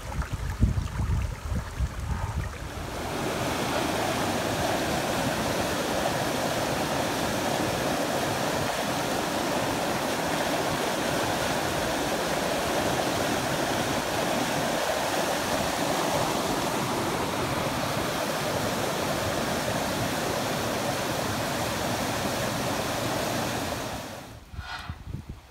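Floodwater rushing down a swollen concrete drainage channel, a steady loud rush of white water. In the first couple of seconds it is water spilling across a flooded road, with wind buffeting the microphone. The rush drops away about a second and a half before the end.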